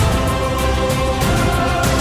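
Background music with held, sustained notes over a steady beat.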